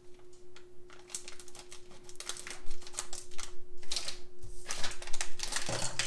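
Scissors cutting open a Lego minifigure foil bag: a run of quick, crisp snips and crinkles. Near the end the foil bag crinkles as it is tipped and shaken, and the plastic parts fall out onto the table.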